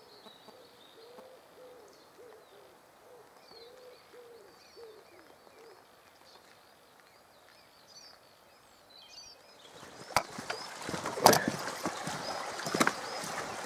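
Woodland birds calling: a low note repeated quickly for the first few seconds, with thin high chirps over it. About ten seconds in, footsteps and knocks on the boards of a wooden footbridge take over and are louder.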